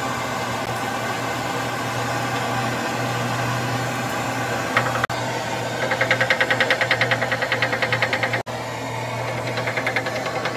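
A machine running steadily with a low hum. About six seconds in, a rapid rhythmic pulsing of about seven beats a second joins in for a couple of seconds, and it comes back more faintly near the end.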